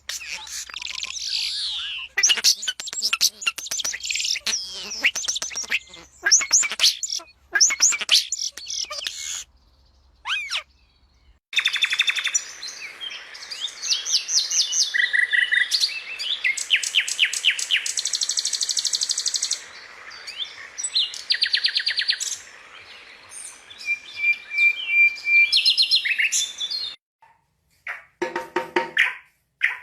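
Songbirds singing: a busy run of high chirps, quick whistled sweeps and fast rattling trills. It breaks off twice into brief silence, around a third of the way in and again near the end.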